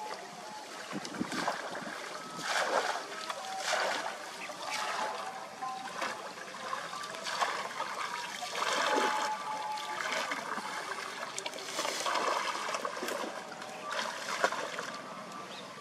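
Water splashing and sloshing as a person wades through a shallow canal, in repeated surges about a second apart.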